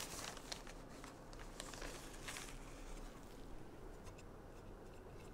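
Faint, scattered rustles and soft taps from hands handling a plastic zip-top bag and setting cinnamon-sugar-coated biscuit pieces into a pan.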